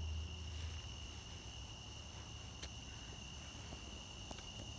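Insects calling outdoors in a steady, unbroken high-pitched chorus, with a faint low rumble at the start and a couple of light clicks.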